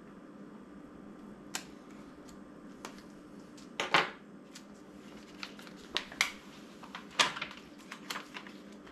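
Heat-transfer vinyl sheet being weeded and handled: scattered short clicks, scratches and plastic rustles as the scraps are picked out and brushed off, loudest about four seconds in and again near seven seconds, with the sheet being lifted and peeled near the end. A steady low hum runs underneath.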